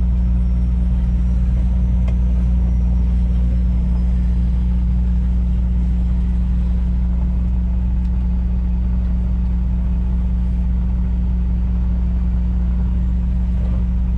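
Semi truck's diesel engine running while the truck creeps along at low speed, heard from inside the cab as a steady low drone.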